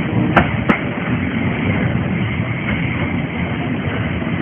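Harzer Schmalspurbahn narrow-gauge passenger coaches rolling past: a steady rumble of wheels on the track, with two sharp clicks close together about half a second in.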